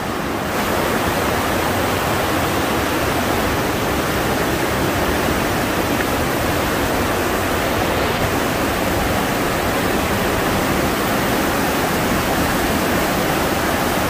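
Mountain stream rushing and splashing through a narrow rock gorge: a loud, steady wash of water noise that grows slightly louder about half a second in.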